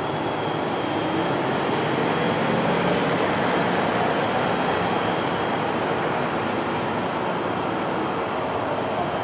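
Siemens Charger diesel locomotives idling at a standstill: a steady running noise with a faint constant high whine. It swells slightly for a few seconds, about two seconds in.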